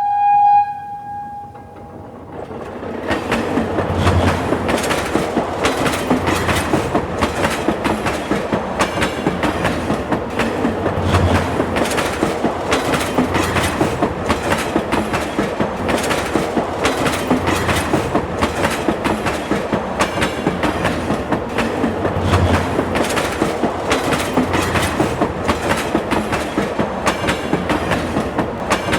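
Subway train: a short horn blast right at the start, then the train running at speed, its wheels clicking rhythmically over the rail joints with a steady rumble underneath.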